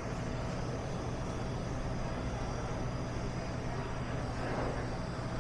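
Steady low machine hum with a faint constant whine above it, the running refrigeration and equipment of a store's seafood department with refrigerated display cases and live-fish tanks.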